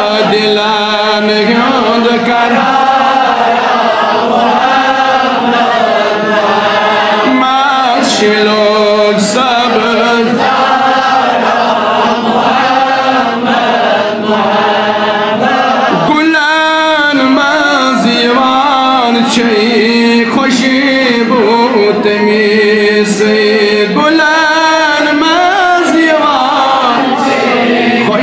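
A man's solo voice chanting a Kashmiri naat, a devotional song in praise of the Prophet Muhammad, in long melodic phrases with wavering ornaments.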